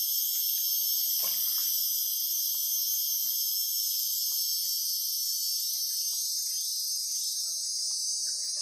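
Steady, high-pitched chorus of insects, unbroken throughout, with a few faint small sounds beneath it.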